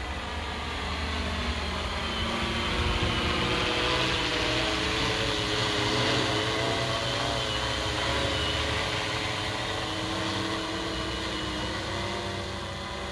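Yuneec Tornado H920 hexacopter in flight, its electric motors and propellers whirring. The pitch wavers up and down as the rotor speeds change, and it grows louder toward the middle and eases off again.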